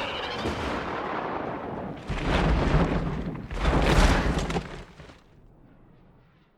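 Monster-movie sound effect of explosions: a rumbling blast followed by two heavy booms, about two and four seconds in, that die away to near silence.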